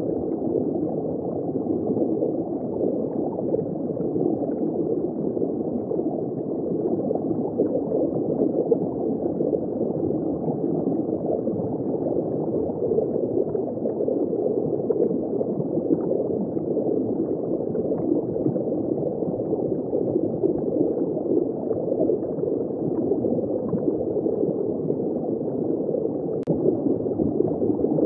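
Steady, muffled gurgling of water circulating in a saltwater reef aquarium, running on without a break.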